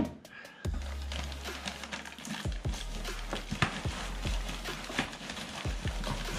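Hands digging through loose styrofoam packing peanuts in a cardboard box and drawing out a plastic-wrapped part: a steady run of light rustles, squeaks and clicks.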